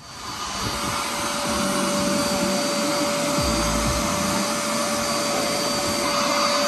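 Portable carpet spot cleaner's vacuum motor running steadily with a constant whine as its hose nozzle is drawn over carpet.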